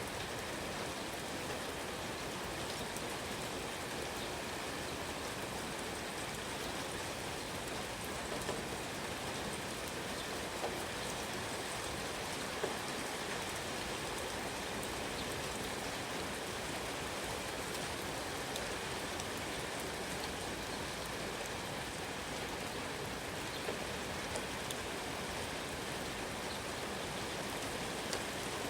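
Steady rain falling, an even hiss, with a few single drops standing out sharply now and then.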